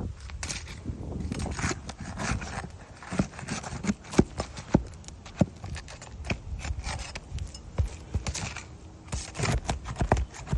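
Irregular scrapes, taps and gritty clicks of work on asphalt roof shingles, with a few sharper knocks scattered through.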